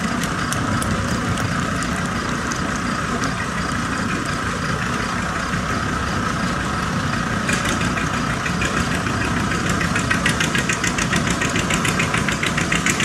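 Antique tractor's engine working under load on a pull, running steadily, with a fast, even popping exhaust that turns sharper and a little louder about halfway through.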